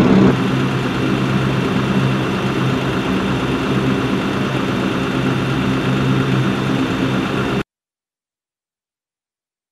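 A heavy engine idling steadily, a low hum with a faint high whine over it. The sound stops abruptly about seven and a half seconds in, leaving dead silence.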